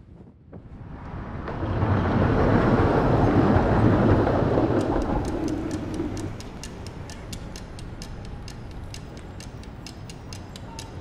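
A rumbling whoosh swells up over a couple of seconds and fades away, then fast, even clock-like ticking, about four ticks a second, carries on to the end.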